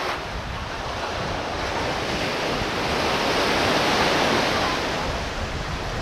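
Surf washing onto a sandy beach, swelling to a peak about four seconds in and easing after, with wind buffeting the microphone.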